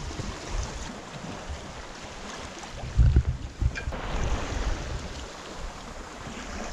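Sea water washing past a sailing yacht's hull under way, with wind buffeting the microphone; a louder low buffet about three seconds in.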